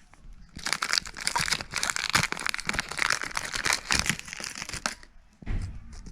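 Foil wrapper of a Pokémon TCG Sun & Moon Team Up booster pack crinkling as it is handled and torn open, with a few soft low knocks near the end.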